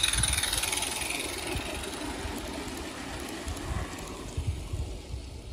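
Small live-steam garden-railway locomotive and its coach running past close by across a metal truss bridge, loudest at the start and fading steadily as the train moves away.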